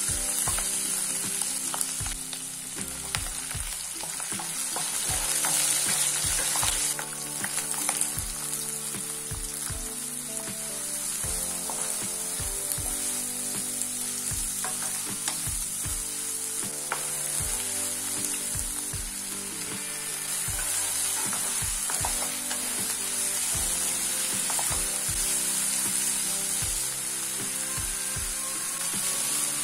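Oil sizzling in a nonstick kadai as chopped ginger-garlic, onions, green chillies and tomatoes fry, with a spatula stirring and scraping and knocking against the pan. The sizzle is loudest in the first seven seconds, then steadier and a little lower.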